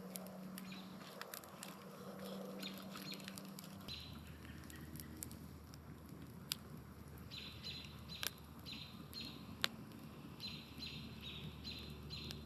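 Faint outdoor ambience with a small bird chirping in quick runs of short, high, evenly repeated notes, several times over, among scattered sharp clicks.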